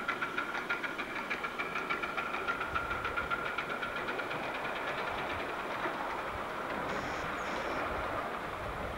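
7¼-inch gauge ride-on miniature locomotive running with passengers aboard: a fast, even knocking beat of about five a second over a steady whine, which fades after about five seconds into a more even running noise.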